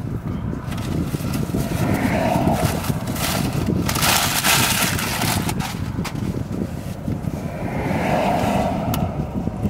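Road traffic going by with a steady low rumble. A paper fast-food bag rustles loudly for a second or two about four seconds in.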